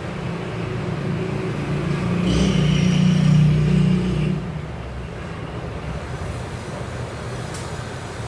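Road traffic rumbling steadily, swelling louder for about two seconds partway through as a vehicle passes; a single sharp click near the end.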